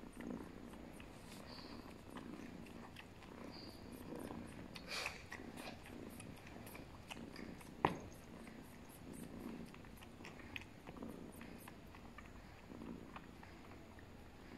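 Turkish Angora cats purring steadily in a low, pulsing rumble, with small wet clicks of licking as the mother grooms her kitten. There is one sharper click about eight seconds in.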